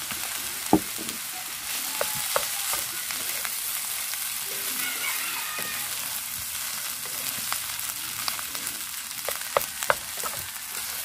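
Rice sizzling steadily as it stir-fries in a frying pan, turned and scraped with a wooden spatula, with scattered sharp taps of the spatula against the pan.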